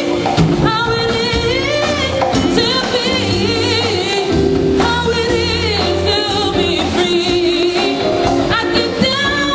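Live band playing with a singer: a sung line with vibrato over sustained bass notes, drums and cymbals.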